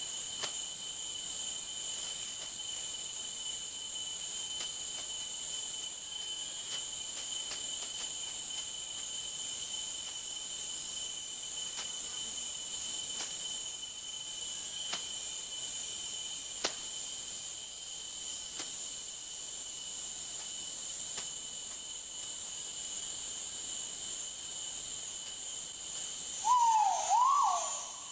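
Steady high-pitched drone of rainforest insects, with a few faint ticks. Near the end comes a short, loud call whose pitch swoops down and back up twice.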